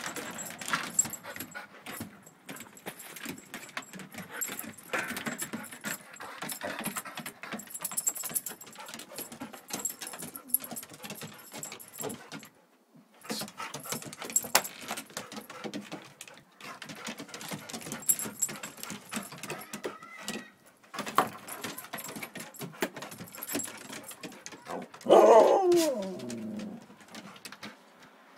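Yellow Labrador–golden retriever mix dog spinning and hopping on a wooden deck, with a patter of clicks and jingling as it moves. Near the end comes one loud, drawn-out bark that falls in pitch.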